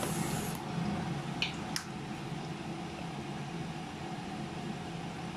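Steady whirring hum and hiss of a kitchen appliance's fan running, with two brief light clicks about a second and a half in.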